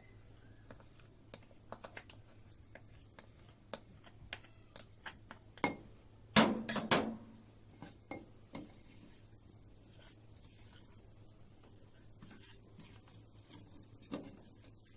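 Spoon clinking and scraping against a bowl as ghee is stirred into a peanut and melted sugar mixture, with scattered light clicks and a cluster of louder knocks about six to seven seconds in.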